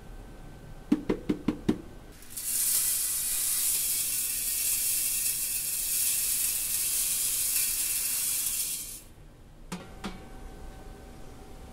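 Five quick knocks, then glass enamel frit pouring from a plastic bucket into a steel hopper funnel: a steady gritty hiss for about six seconds that stops abruptly. Two light knocks follow near the end.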